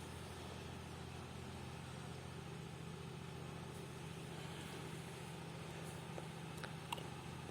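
Steady low background hum with a faint hiss, and two or three small clicks near the end.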